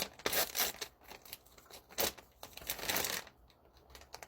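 Plastic snack packaging rustling and crinkling as it is handled, in a few short bursts: near the start, about two seconds in and around three seconds in.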